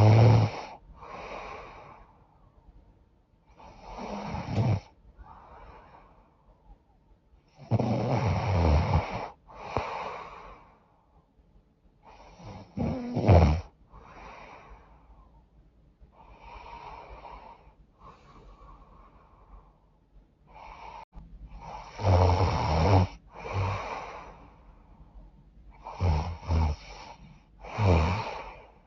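A woman snoring in her sleep through a blocked, runny nose: loud snores every few seconds with softer breaths between them, and a quieter spell of plain breathing around the middle.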